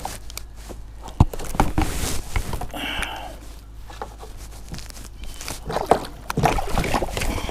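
Knocks and scraping of gear and hands against a fishing kayak's plastic hull while a hooked bass is fought alongside, with a sharp knock about a second in.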